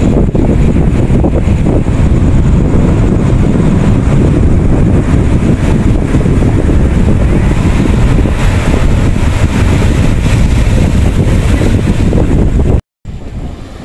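Strong wind buffeting the microphone over waves breaking on a rocky shore, a loud, steady rushing rumble. Near the end the sound cuts out for a moment and comes back much quieter.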